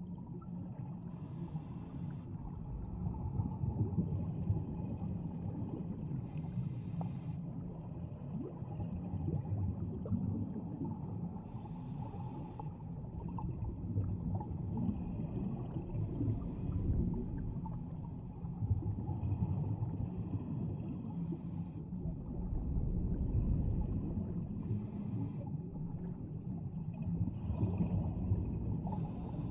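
Underwater sound of scuba divers breathing from their regulators: a rush of exhaled bubbles every four to six seconds over a steady low rumble.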